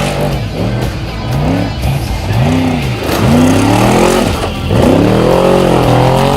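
Trophy truck's race engine revving up and down in repeated swells, short ones about once a second, then longer, higher rises in the second half.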